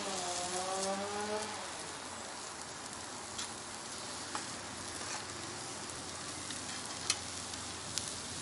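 Chopped onions sizzling as they fry in a steel frying pan over a fire, stirred with a wooden spatula, with a few scattered clicks. A low pitched hum with overtones sounds for the first second and a half, then stops.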